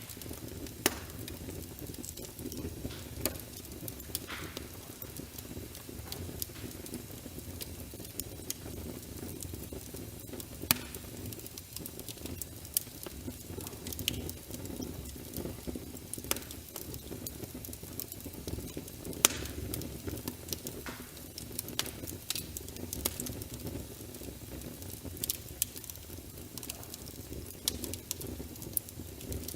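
Wood fire burning in a fireplace: a steady low rumble of flames with irregular crackles and pops, a few of them sharp, louder snaps.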